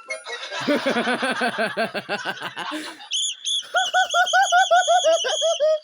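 A noisy instrument played as a quick run of short pitched toots, about five a second: a lower run first, then a higher, squeakier run from about three seconds in.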